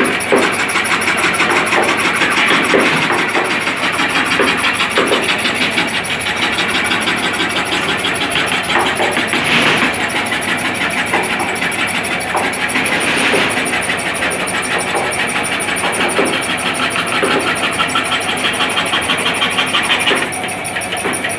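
Scroll saw running and cutting a curve through a wooden board, its blade driven rapidly up and down by a reciprocating wooden arm. The result is a steady mechanical sound with a fast, even rhythm.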